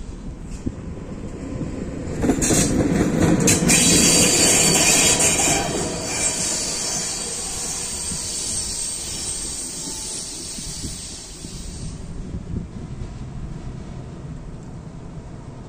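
Class 350 electric locomotive passing over the level crossing. About two seconds in comes a loud rush of wheel and rail noise with a high hiss, loudest for a few seconds, then fading as it moves away.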